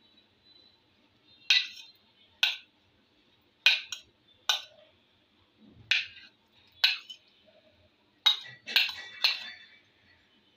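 A metal spoon clinking against a ceramic plate as cut fruit is pushed off it into a bowl: about ten short, sharp clinks at irregular intervals, several close together near the end.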